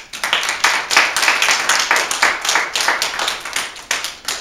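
A group of people applauding, a dense run of hand claps that starts suddenly and thins out near the end.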